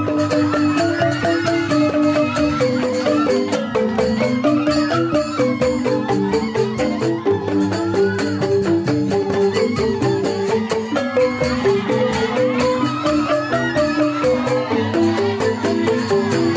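Balinese joged bumbung gamelan playing: bamboo-tube xylophones (grantang) struck in fast, dense interlocking patterns, with kendang drums keeping the beat.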